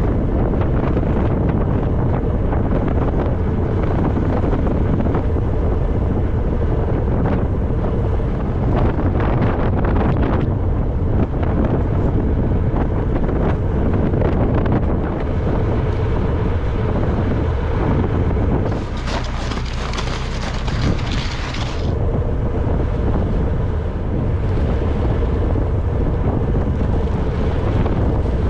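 Strong wind buffeting the microphone over a steadily running farm vehicle engine, with a brighter hissing rush for a few seconds about two-thirds of the way through.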